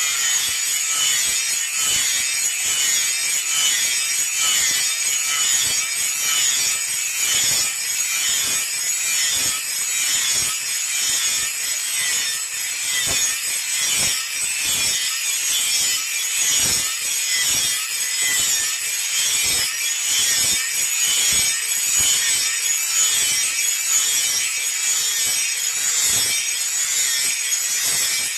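A hand tool rasping back and forth on iron in steady repeated strokes, about one or two a second, as a blade is filed or cut by hand.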